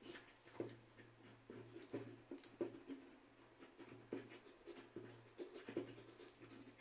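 Faint irregular clicks and scrapes of a plastic smart radiator thermostat valve being handled and taken apart, over a low steady hum.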